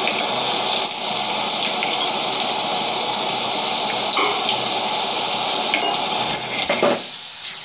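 Chopped onions sizzling in hot oil in a kadhai, a steady frying hiss with a few light clicks in the second half.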